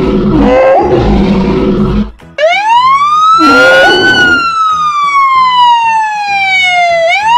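A low rumbling growl for about two seconds, then a siren wail that rises for about a second and a half, falls slowly over about three seconds and starts rising again at the end. A short noisy growl cuts in as the wail reaches its peak.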